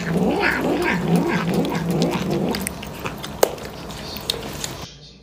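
A cat giving low, wavering yowls during a wrestling tussle with another cat, repeated over the first couple of seconds, with scattered clicks and one sharp click about three and a half seconds in; the sound breaks off abruptly near the end.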